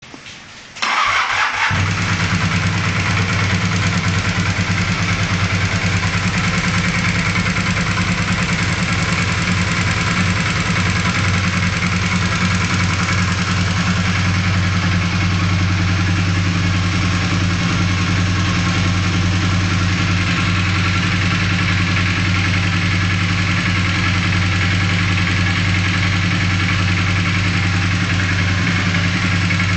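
Honda CB450 parallel-twin motorcycle engine starting, catching about a second in, then idling steadily. It is the idle that the owner finds to be making a strange noise.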